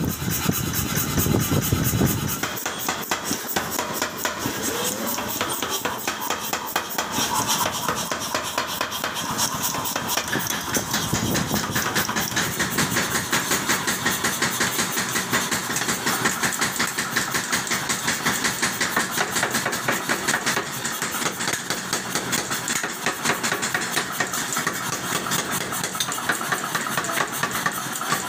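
A 50 kg air power hammer running idle, its motor and compressor keeping up a fast, even knocking beat.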